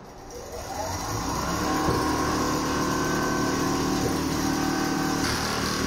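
Richpeace CNC template sewing machine speeding up to stitching speed. Its motor whine rises in pitch over the first second or two, then runs steady and loud.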